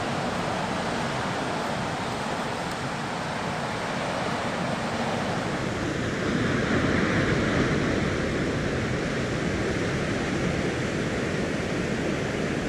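Ocean surf: a steady rush of breaking waves that swells a little about halfway through.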